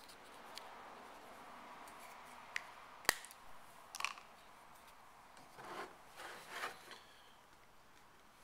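Small parts and tools being handled on a workbench: scattered light clicks and short rustles, with one sharp click about three seconds in.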